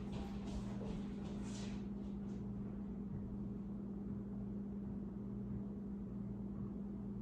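A steady low electrical hum in an empty room, with a few faint brief rustles in the first couple of seconds.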